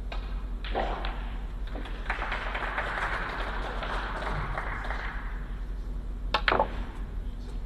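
A snooker shot being played: a sharp click of the cue tip on the cue ball, then a second click a fraction of a second later as the cue ball strikes an object ball. Both come near the end and are the loudest sounds.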